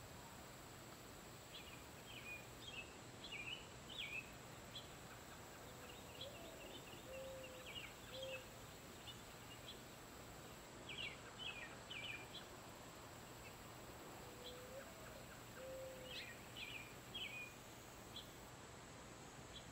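Male house finch giving short, sharp chirp calls in scattered bunches of two to five, many dropping slightly in pitch. A low, drawn-out call sounds faintly twice in the background.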